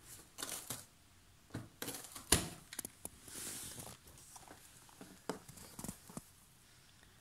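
A cat biting and tearing at the edge of a cardboard box: irregular scratchy rips and crunches of cardboard, with the sharpest crack about two seconds in.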